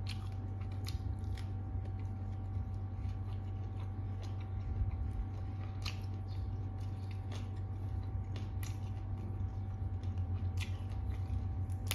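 Close-miked chewing and crisp crunching of raw vegetables and papaya salad, with scattered sharp crunches, over a steady low hum.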